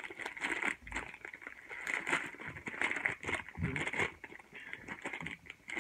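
Plastic instant-ramen packet crinkling and rustling in the hands as it is torn open and the dried noodle block is pulled out, a run of short crackles throughout.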